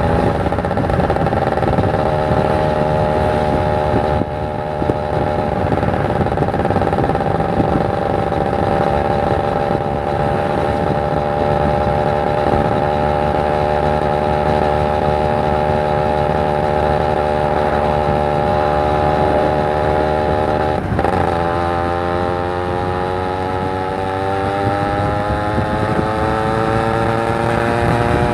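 Kawasaki Ninja 150 RR's two-stroke single-cylinder engine under way. The revs sag slowly for most of the time. They break briefly about three-quarters of the way through, then climb steadily as the bike accelerates.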